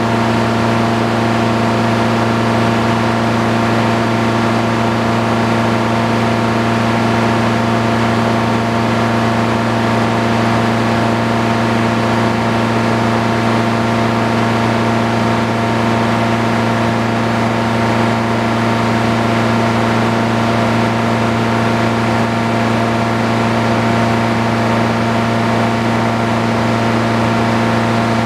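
Circular sawmill running steadily between cuts: the power engine and the belt-driven saw turning at an even speed with no log in the blade.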